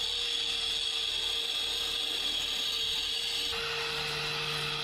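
Corded angle grinder cutting the hub out of a rusty steel chain sprocket: a steady motor whine under the hiss of the disc on metal. The sound changes abruptly about three and a half seconds in.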